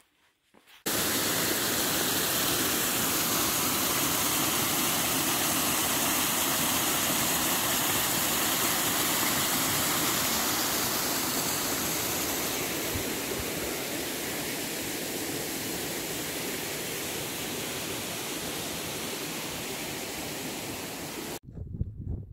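Water rushing steadily in an irrigation channel, starting abruptly about a second in, easing a little over the second half and cutting off suddenly near the end.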